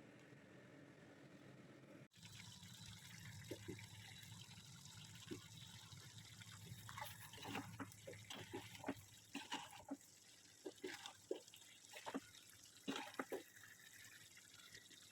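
Faint running water with scattered light clinks and knocks, starting about two seconds in and growing busier in the second half.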